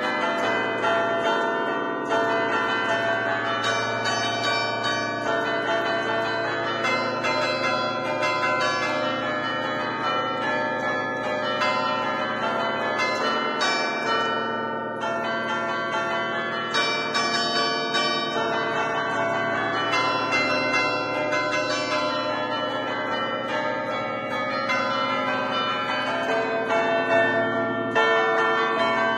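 The ten-bell chime in A, cast by Barigozzi in 1950, played by hand from a baton keyboard. The bells are struck in quick succession in a lively traditional allegrezza tune, a festive peal, and their ringing tones overlap continuously.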